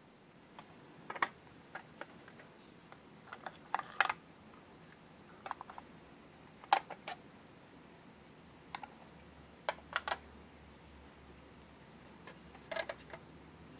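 Light plastic clicks and taps as the pieces of a miniature toy kitchen are handled: a small cabinet door and a plastic toy pot knocking against the plastic set. The taps are irregular, about a dozen, the sharpest about four and seven seconds in.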